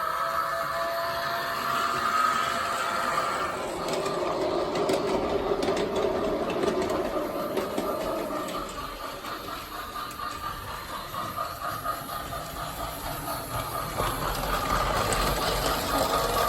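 Battery-powered Plarail toy C62 steam locomotive running on plastic track. Its small electric motor whirs steadily and its wheels rattle over the track, and the whine's pitch shifts around four seconds in.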